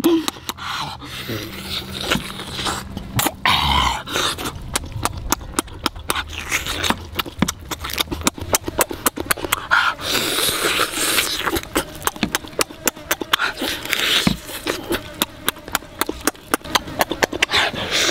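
Close-up eating sounds: a person biting and chewing roast duck with his lips smacking, making many rapid irregular clicks.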